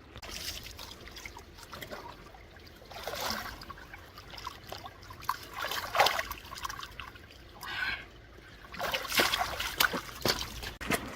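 Shallow stream water splashing and trickling in irregular bursts, with the loudest splashes about six seconds in and again near the end.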